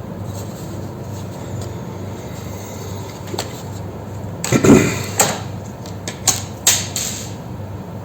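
Clicks and knocks of hard laptop parts being handled, over a steady low hum. The loudest is a short clatter about halfway through, followed by several single sharp clicks.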